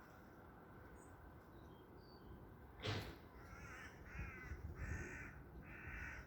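A sharp click, then a bird calling four times in quick succession, harsh calls of about half a second each. A few faint, high chirps come before them.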